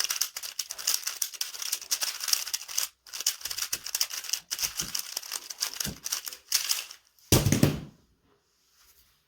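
Rubik's cube being turned quickly during a solve: a fast, uneven stream of plastic clicks and rattles with brief pauses. A little after seven seconds in comes one louder, fuller noise lasting under a second, then it goes quiet.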